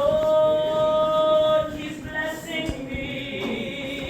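A woman singing a gospel song, holding a long, loud note for about a second and a half, then moving on to softer, lower held notes.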